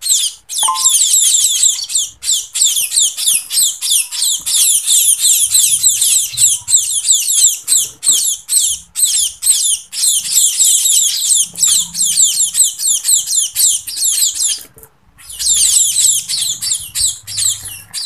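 A group of fledgling munias (emprit) giving rapid, high-pitched begging chirps almost without a break, with a short pause near the end. This is the impatient begging of hungry chicks waiting to be hand-fed.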